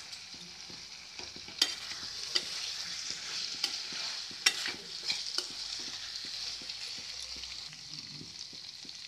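Julienned carrot and capsicum in sauce sizzling in a hot kadai (wok) as they are stir-fried, with a steady hiss and a spatula scraping and clicking against the pan every second or so.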